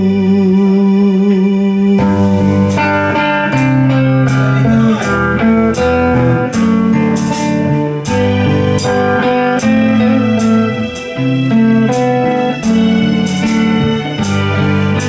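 Instrumental break in a live band: an archtop electric guitar plays a bluesy melodic solo over drum kit and keyboard accompaniment. It opens with one long held note with vibrato, then moves through a string of separate notes.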